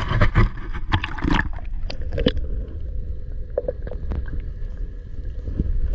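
Water sloshing with a steady low rumble, a quick run of knocks and clicks in the first second and a half, then scattered clicks.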